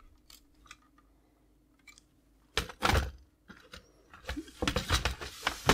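Plastic clicks and knocks of an Amiga A600's top case being prised up and separated from its base: one loud knock about three seconds in, then a run of smaller clicks near the end.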